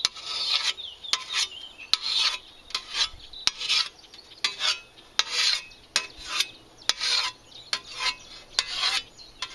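Wet whetstone honing a scythe ditch blade in rapid alternating strokes along the edge, about one rasping stroke every 0.7 seconds.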